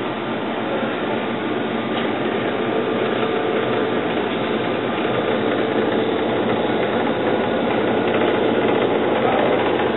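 Bakers Aid Ultra II single rack oven running: the steady whirring hum of its fan and motors, with a faint tone in it, growing slightly louder.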